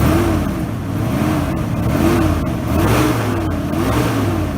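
Chevrolet 454 big-block V8 being revved in repeated blips, its pitch rising and falling about once a second. The engine fan can be heard with it. There is no fan belt squeal now that the belt has been tightened.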